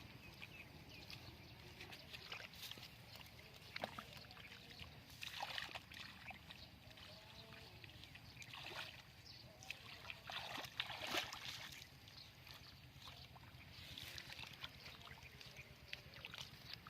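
Shallow water splashing and sloshing in short, irregular bursts, the loudest a little past the middle, over a faint steady low hum.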